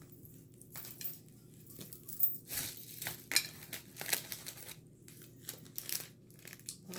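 Handling noise of packaging and plastic bottles: a series of short crinkles, rustles and taps as cleaning products are picked up and set together, loudest about two seconds in.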